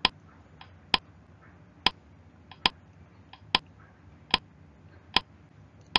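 Counting sound effect: about eight short, sharp clicks a little under a second apart, each marking one more item counted, with fainter clicks between them.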